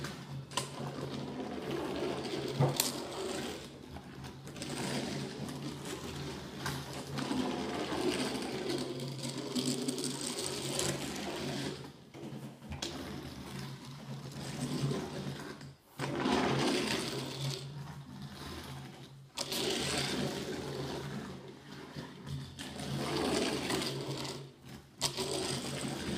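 Toy race cars pushed by hand around a painted tabletop oval track, with a continuous buzzing, engine-like whir that cuts out briefly every few seconds.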